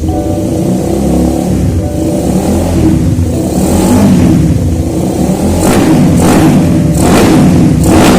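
Suzuki Satria FU 150's single-cylinder four-stroke engine running on test after its balancer damper has been renewed, revved up several times in the last few seconds.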